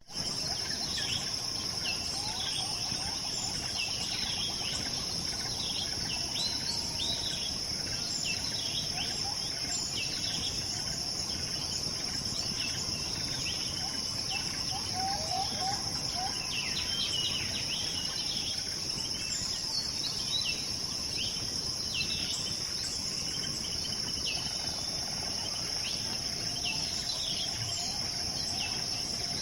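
A steady, high insect drone like crickets, with many short bird chirps and calls scattered over it throughout.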